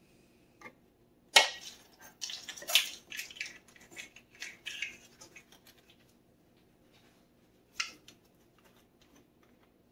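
Metal measuring spoons clinking and clattering as they are handled on a kitchen counter. A sharp clack comes about a second and a half in, then a few seconds of rattling clicks, and one more click near the end.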